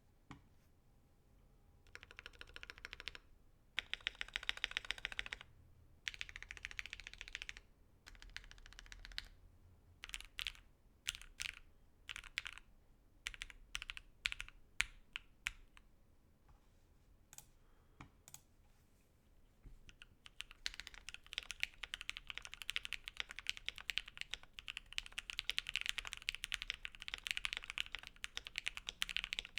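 Typing on an OwLAB Voice65 mechanical keyboard fitted with lubed and filmed JWK Dogikon linear switches (Krytox 205g0, PC films) on a PE plate. There are three short runs of rapid keystrokes, then separate single key presses, then steady fast typing in the last third.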